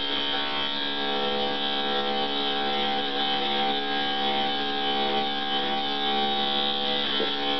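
Electric dog-grooming clipper with a #5 steel comb running steadily through a Havanese's coat. It makes a loud, even buzzing hum with no change in pitch.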